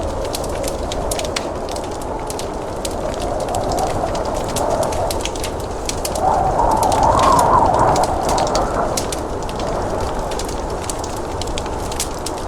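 Wood fire crackling with frequent sharp pops, under a blizzard wind that moans and swells, loudest from about six to nine seconds in.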